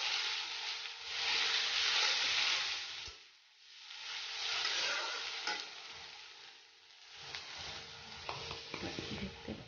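Chopped onion and garlic sizzling in hot oil in a steel kadhai while a metal spatula stirs them. The sizzle swells and fades in waves as the food is turned, with spatula scrapes and clicks against the pan in the second half.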